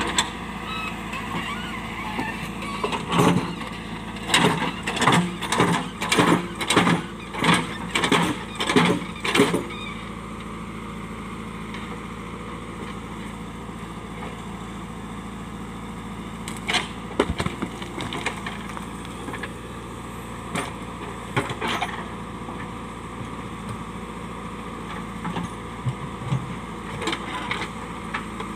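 A JCB backhoe loader's diesel engine runs steadily while the machine works rock. Heavy knocks come in a run of about ten, roughly one every half second, starting a few seconds in; a few more single knocks follow later.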